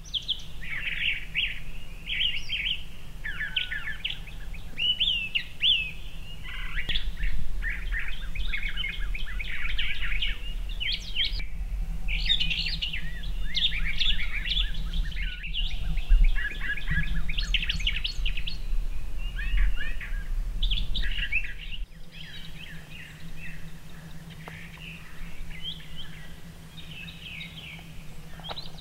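Many songbirds singing and chirping together in a dense morning chorus of quick, overlapping calls, with a low steady rumble underneath that drops away about three quarters of the way through.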